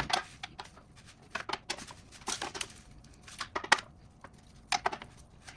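Irregular metallic clicks and clinks of hand tools and bolts as a car's intake manifold bolts are fitted and tightened, in short separate strokes with pauses between.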